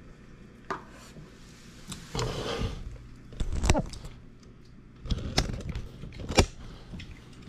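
Handling noise at a meal table: scattered sharp knocks and clinks with a short stretch of rustling about two seconds in. The loudest knocks come about halfway through and near the end.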